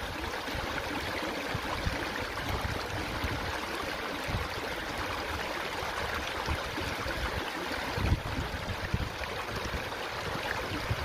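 Steady rushing of water, like a stream or surf, with irregular low rumbles underneath.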